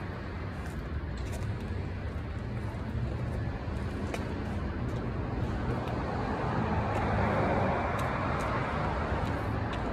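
Road traffic noise: a steady low rumble, with a vehicle passing that swells and fades from about six to eight seconds in. A few sharp clicks are scattered through it.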